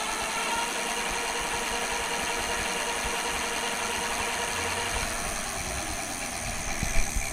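E-bike rear hub motor (500 W, driven by a 1500 W controller) running with a steady whine over a hiss of noise. About five seconds in the whine drops in pitch as the motor slows. A couple of knocks come near the end.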